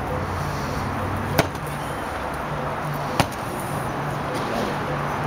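Large aluminum cart wheel with a rubber tire banged down on pavement twice, under two seconds apart: two sharp thumps. Each blow works the stretched rubber onto the rim to close the gap in the tire.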